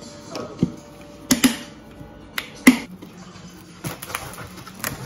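Crockery and a cling wrap box being handled on a kitchen counter: a series of sharp clicks and knocks, about eight in all, the loudest about two and a half seconds in.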